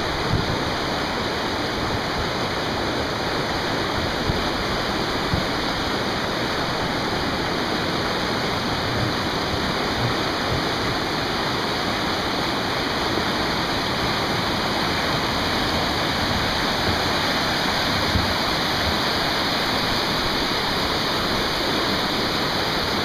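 River rapids: water rushing over rocks in a steady, unbroken rush.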